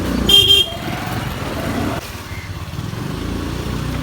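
Motor scooter engine running in street traffic, with a short high-pitched horn beep about half a second in; the engine sound drops back about two seconds in as it eases off.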